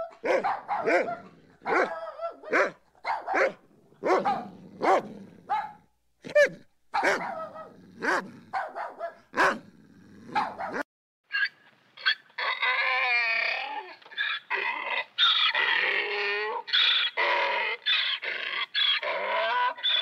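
A dog barking repeatedly in short, sharp barks for about the first ten seconds. After a brief gap comes a fast run of high-pitched, wavering yelps and whines.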